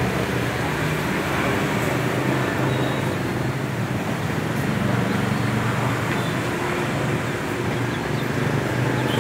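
Steady din of road traffic with indistinct voices mixed in.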